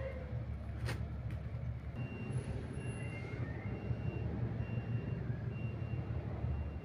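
Kenworth T660 semi-truck's diesel engine running at idle, a steady low rumble. A faint high beep repeats about once a second over it.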